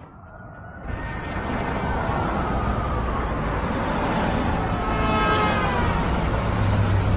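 Busy city street traffic: a steady rush of cars and engines building up about a second in, with film music over it.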